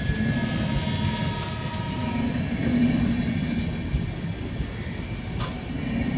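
Passenger coaches of an express train rolling past close by: a steady rumble of wheels on the rails, with faint whining tones in the first two seconds and a sharp click about five seconds in.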